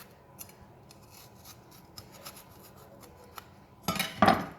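Seeds and white pith being scraped out of a halved capsicum on a cutting board: faint scraping with small clicks, then a louder rasping scrape about four seconds in.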